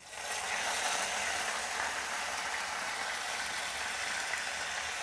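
Spaghetti aglio e olio frying in oil in a skillet over an open fire, a steady sizzling hiss that begins suddenly.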